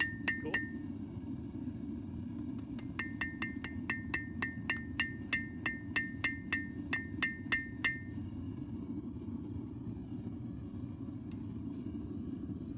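Hammer blows ringing on a steel anvil, about three a second: two strikes at the start, then a run of about fifteen from about three seconds in until about eight seconds in. Under them is a steady low roar, the kind a propane forge burner makes.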